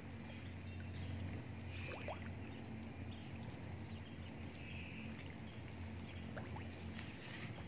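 Water sloshing with small splashes at the pond's edge, where fish are taking feed at the surface beside a plastic feed bag dipped in the water. Short high chirps come and go over a steady low hum.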